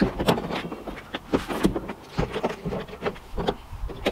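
Irregular knocks, taps and scrapes of a large written board being unclipped and lifted off a wooden door by hand.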